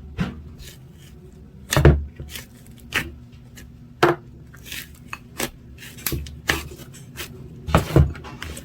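Slime being pressed, stretched and squished by hand, played in reverse: a dozen or so irregular sharp pops and clicks, the loudest just before 2 seconds and around 8 seconds, over a faint low hum.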